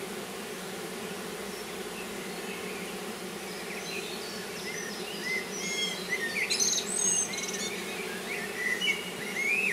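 Honeybees humming steadily around an opened hive, with a frame of comb covered in bees lifted out. Birds chirp in short whistles from about four seconds in.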